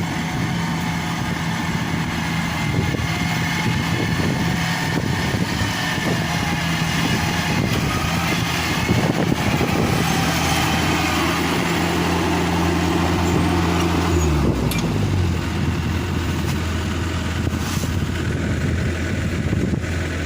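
Yanmar AW70V combine harvester's diesel engine running steadily under the clatter of its harvesting machinery. About fourteen seconds in, the engine pitch drops quickly to a lower, steady speed as it is throttled back.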